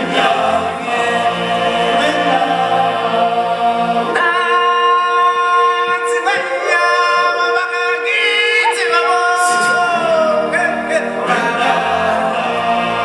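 A choir singing with musical backing, many voices holding long notes. In the middle the low accompaniment drops away, leaving the voices in sustained chords, and it comes back near the end.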